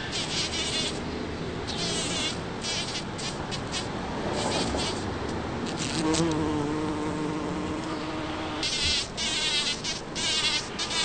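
Bumblebee buzzing as it works rose blossoms. From about six seconds in, a steady buzz holds one pitch for two and a half seconds. This is the kind of buzz the bee makes while harvesting, by vibrating its flight muscles with its wings at rest.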